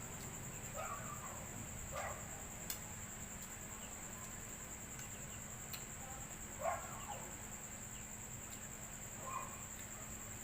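Steady high insect trill, with four short animal calls, the loudest about two thirds of the way through, and a few sharp clicks.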